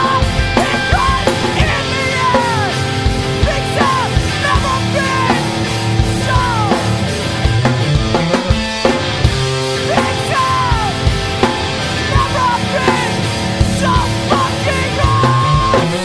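Punk rock song played on electric guitar and drums, with repeated sliding, falling high notes over a steady beat.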